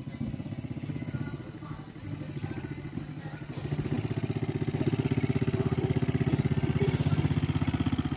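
250cc ATV engine running with a fast, even pulsing beat, getting louder about three and a half seconds in and holding there.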